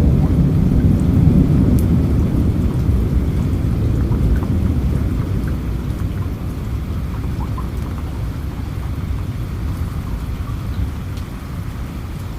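Steady rain with scattered drop ticks, over a low rolling rumble of thunder that is loudest in the first few seconds and slowly fades.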